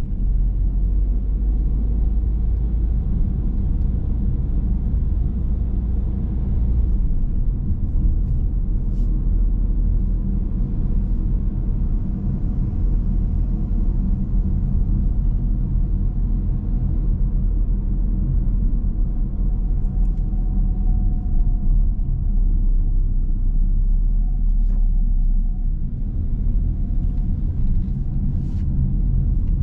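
A moving car's engine and tyre noise, a steady low rumble, with a faint whine that comes and goes.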